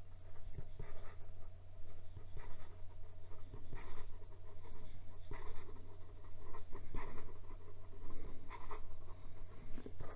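Fountain pen nib scratching across notebook paper in quick, looping cursive: an irregular run of short scraping strokes. The nib is writing wet and without trouble at speed.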